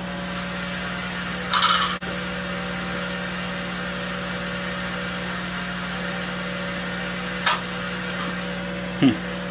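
Steady electric motor hum from running shop machinery, with a short rushing noise about one and a half seconds in and a sharp click near the end.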